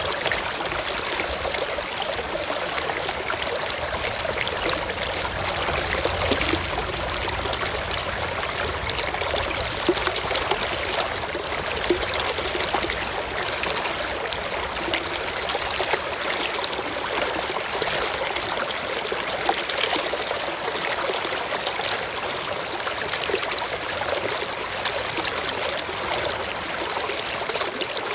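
Shallow stream trickling and babbling steadily, a continuous wash of running water with fine splashing detail.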